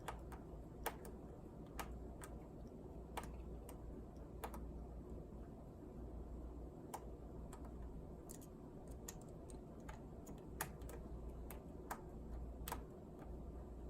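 Faint, irregular light clicks of a small screwdriver and tiny screws being worked out of a laptop's internals, over a low steady hum.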